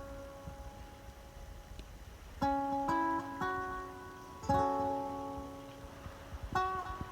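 Background music: a plucked acoustic string instrument playing slow chords, struck four times, each ringing out and fading.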